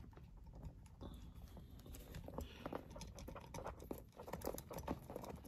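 Small metal parts of a Solex 34 PICT-3 carburettor being handled and fitted by hand: scattered faint clicks with light rustling.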